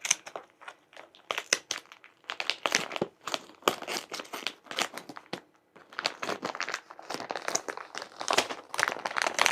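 Foil shipping pouch crinkling and rustling as it is cut and pulled open, a dense run of irregular crackles with short tearing sounds.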